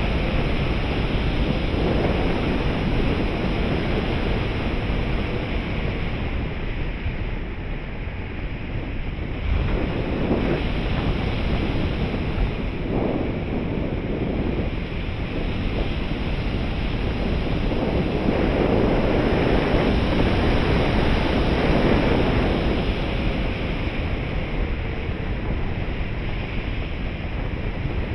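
Airflow rushing over the onboard camera's microphone on a 3.6 m RC glider in gliding flight. The noise is steady with no motor in it, easing about a third of the way in and swelling again about two-thirds through.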